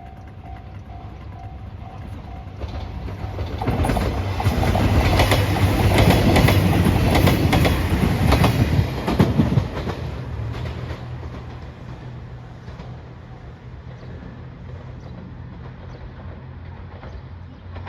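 A train passing close by over a level crossing, its wheels clacking over the rail joints. It builds over a few seconds, is loudest for about six seconds, then fades away.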